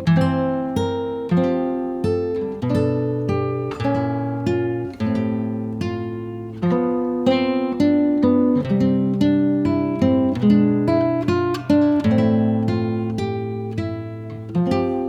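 Background music of plucked acoustic guitar: a gentle picked melody with chords, notes ringing and fading one after another.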